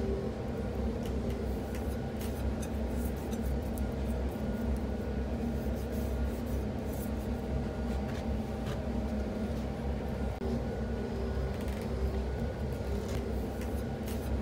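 Hands rubbing and smoothing a paper template onto a forged steel knife blank, light scratchy rubbing and small taps, over a steady low workshop machine hum.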